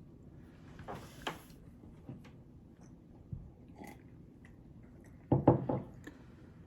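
Someone eating cake: quiet chewing with a few small clicks and taps, like a fork on a plate, and a louder short cluster of sounds about five and a half seconds in.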